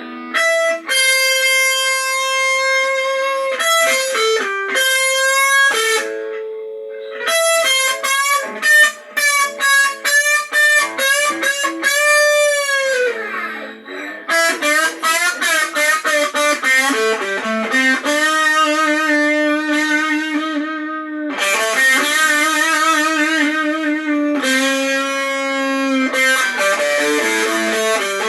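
Blues played on a distorted electric guitar: held notes, a quick run of short picked notes, and a note bent down in pitch about halfway through.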